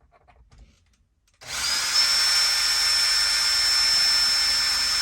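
Electric drill starting about one and a half seconds in. It spins up briefly, then runs steadily with a high whine while boring a rivet hole through a fabric bag, pressed hard down onto an old saw blade laid underneath.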